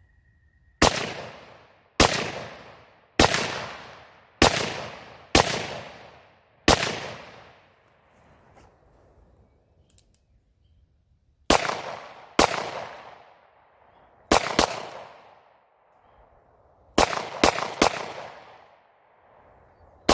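Beretta 92FS 9mm pistol being fired: a string of six shots about one a second, a pause of about five seconds, then seven more shots in quick uneven groups. Each shot rings out with a trailing echo.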